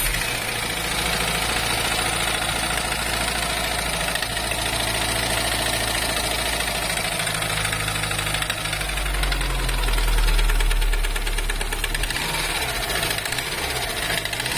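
Subaru Impreza GDB's turbocharged flat-four running at idle just after starting, with an abnormal knocking noise from the engine that is called quite a strange noise. The engine swells briefly about ten seconds in.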